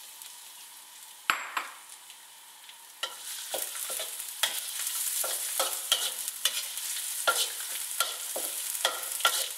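Chopped garlic sizzling in hot oil in a wok, stirred with a metal spatula that scrapes and knocks against the pan. There is a sharp knock about a second in, and the sizzle grows louder about three seconds in.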